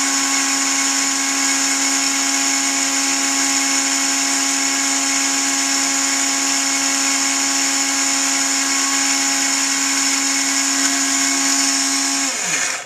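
Dremel-type rotary tool running with a steady whine, belt-driving a tool-post grinder spindle with a diamond burr set to grind the lathe's chuck jaws. Near the end it is switched off, and the whine falls in pitch as it spins down.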